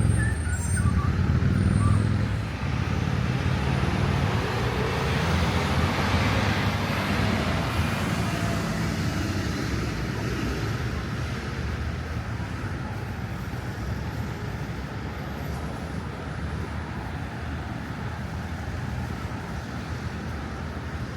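Road traffic, with a heavy vehicle's engine rumbling loudest in the first couple of seconds and then slowly fading away into a steady traffic hum.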